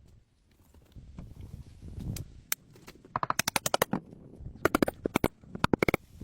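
Three quick runs of sharp knocks, several to the second, after a single knock.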